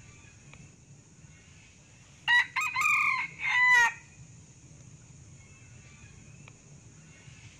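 Male Sumatran red junglefowl crowing once, a short broken crow of a few notes about two seconds in, lasting under two seconds. A faint steady high hiss runs underneath.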